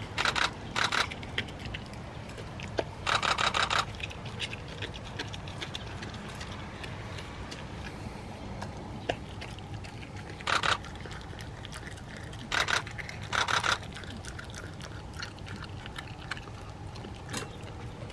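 A Shiba dog chewing and gnawing a chunk of wild boar meat: short bursts of rapid crunching clicks, about half a second each, come in a few spells, with quiet gaps between them.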